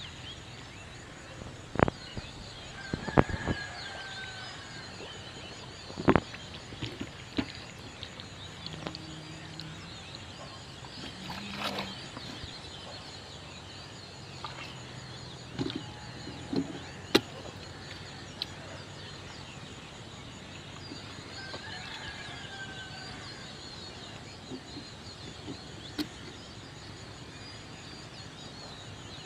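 Outdoor ambience with bird calls now and then and a few sharp knocks, the loudest within the first six seconds.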